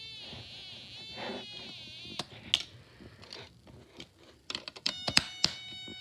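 Snap Circuits light-controlled electronic organ sounding a high, buzzy tone through its speaker, the pitch wavering up and down as a hand shades the circuit, fading out about a second and a half in. Then sharp clicks and snaps of the plastic snap parts being handled, and near the end a steady buzzy tone starts up.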